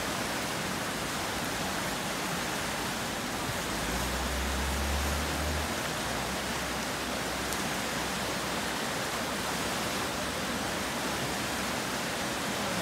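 Fast creek water rushing through rapids: a steady, even hiss of whitewater. A brief low rumble comes about four seconds in.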